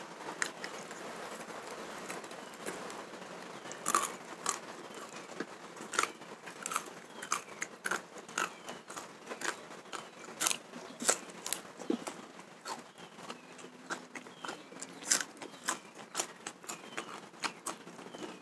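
A person chewing raw fish close to the microphone, with many irregular sharp mouth clicks and smacks.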